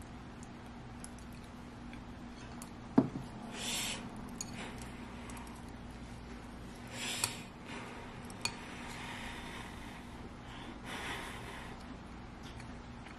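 Eating at the table: metal chopsticks and a spoon clinking against ceramic bowls, with one sharp clink about three seconds in and a lighter click later. Between them come a few short breathy mouth sounds of eating.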